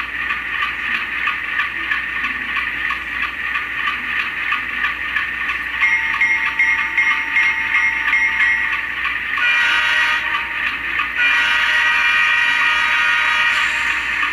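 Sound decoder in a model ALCO C424 diesel playing its ALCO 251 prime mover idling through the locomotive's small speaker. In the second half it sounds the horn in long blasts.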